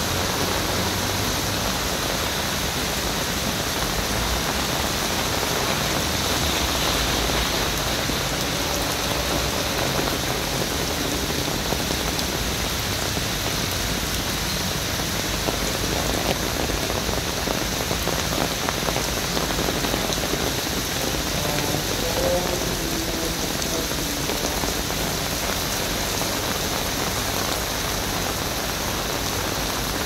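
Heavy rain pouring steadily onto a wet paved road, an even, unbroken hiss of drops.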